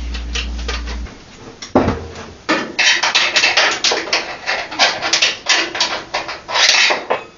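Clattering and rattling of hardware being rummaged through by hand, a dense run of quick clicks and rattles over several seconds. A low hum stops about a second in.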